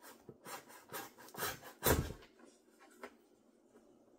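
A knife scraping and slicing through packing tape on a corrugated cardboard box in a run of short rasping strokes, with one heavier thump on the box about two seconds in.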